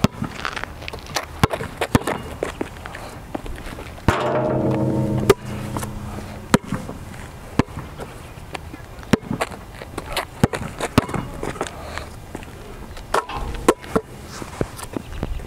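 Basketball bouncing on an outdoor asphalt court: sharp, irregular thuds from dribbles and catches, over and over. About four seconds in, a held pitched sound lasts about a second and is the loudest thing in the stretch.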